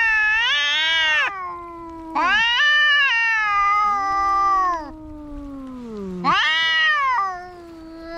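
Cats yowling at each other as in a fight standoff. Three long, wavering yowls each last one to nearly three seconds, with a lower, quieter moaning yowl carrying on in the gaps between them.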